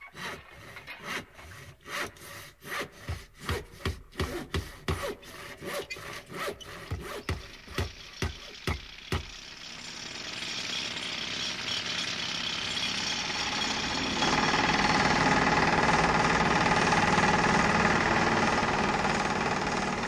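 A hand saw cutting wood in steady back-and-forth strokes, about two a second, for roughly the first half. The sawing then stops and a steady tractor engine noise fades up, growing abruptly louder about three-quarters of the way through.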